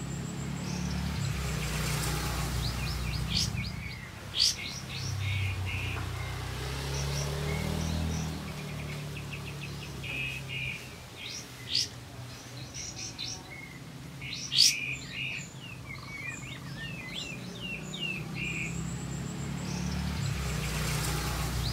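Olive-winged bulbul (kapas tembak) singing a rapid run of chirps and whistled phrases, with three loud, sharp whistled notes standing out. A steady low rumble lies underneath.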